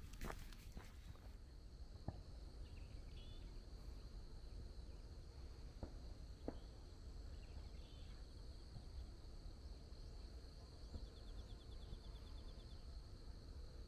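About a second of footsteps on a paved road, then insects chirping steadily in a rural field, with a short pulsed trill near the end over a faint low rumble.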